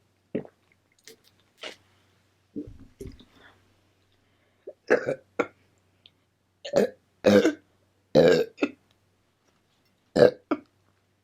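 A person burping repeatedly during a meal: a string of short burps with brief pauses, the loudest coming between about five and nine seconds in, with softer mouth clicks between.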